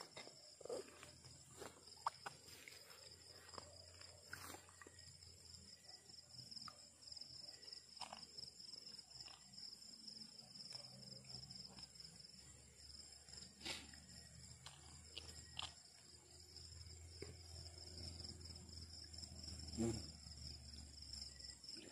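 Steady high-pitched chorus of night insects, with scattered faint clicks and knocks; the loudest come about 14 seconds in and near the end.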